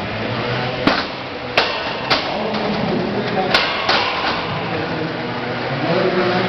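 15 lb combat robots hitting each other in the arena: about five sharp metal clanks in the first four seconds, over a steady hum and crowd chatter.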